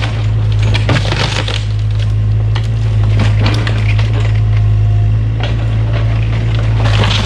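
Cat 303 mini excavator's diesel engine running steadily under load while rotten shed timber cracks and splinters as the machine crushes it, in repeated clusters of snapping.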